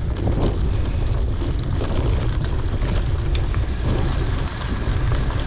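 Wind buffeting a GoPro's microphone while mountain biking on a dirt road, with faint scattered ticks and rattles from the tyres and bike.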